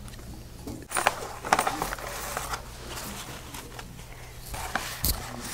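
Handling noise: a knit sleeve rubbing and bumping against the phone's microphone, with scattered short rustles and clicks over a low steady room hum.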